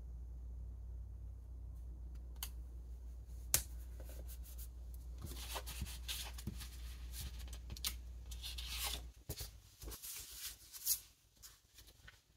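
Paper rustling, light taps and rubbing as fingers press a sticker flat onto a planner page and slide sticker sheets across the table. Under it a low steady hum cuts off about nine seconds in.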